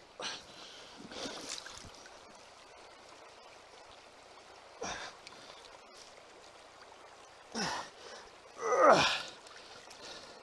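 Shallow stream water trickling, with hands working rocks in the water making a few short splashes. Near the end comes a louder breathy exhalation, falling in pitch.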